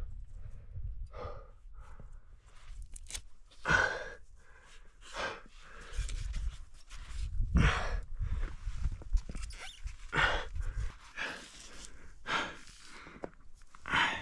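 A rock climber breathing hard after a strenuous effort on the wall: loud, uneven breaths every second or two, over a low rumble.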